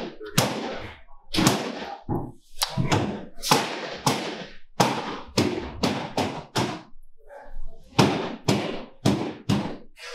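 A string of sharp knocks and thuds, irregular, about two a second, with a pause of about a second some seven seconds in.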